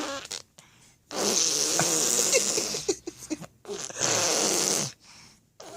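Two long 'raspberry' snores, the first about two seconds long starting a second in, the second a little over a second long starting near the middle.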